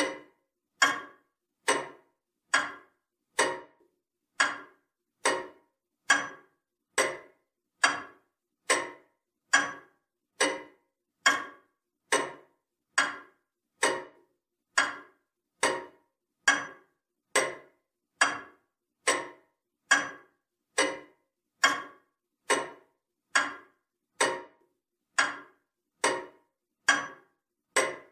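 Ticking of a comtoise (French longcase pendulum) clock, repeating evenly at 70 beats a minute. Each tick is a short sharp click that dies away quickly, with silence between.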